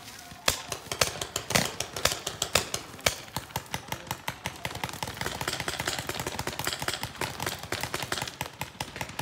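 Paintball markers firing: a run of sharp, irregular pops, coming thick and fast through the middle.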